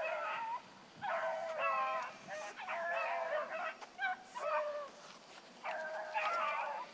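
A pack of young hounds baying and bawling while running a rabbit's track, several voices overlapping in bursts with brief lulls.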